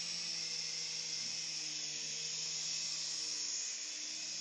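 Protocol Tigerjet infrared RC micro-helicopter in flight: the steady whir of its small electric motors and spinning rotor blades, a constant high hiss over a low hum.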